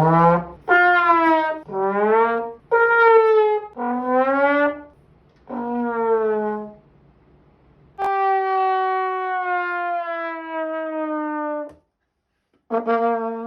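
Trombone played as a comic sound effect: six short notes, several bending up or down in pitch, then one long held note that slowly sags in pitch, and a last short note near the end.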